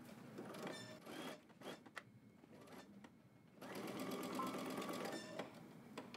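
Electric sewing machine stitching in two runs: a short run of about a second near the start, then a longer steady run of about two seconds from just past halfway, with a few light clicks in between.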